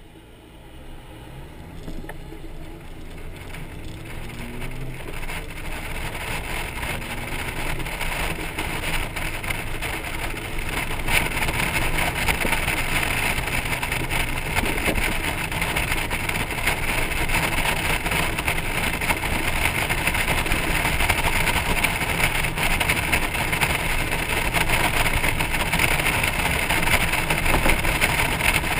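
Honda Gold Wing motorcycle pulling a trailer away from a stop and accelerating: the engine note rises over the first few seconds and the sound grows louder for about ten seconds. It then settles into steady wind and road noise at cruising speed, with wind buffeting the microphone.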